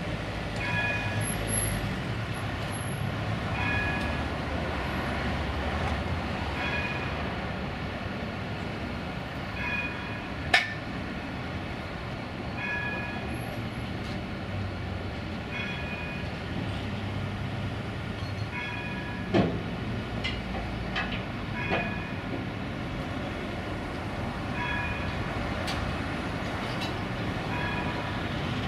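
Astra Siemens Imperio tram coming down off a low-loader trailer onto the rails. There is a low rumble and a few sharp metallic clanks, the loudest about ten seconds in and more around twenty seconds in, with a short beep repeating every two to three seconds.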